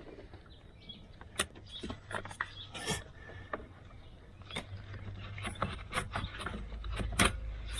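Scattered light clicks and knocks of a hand tool working a coolant hose connection loose, over a low steady hum.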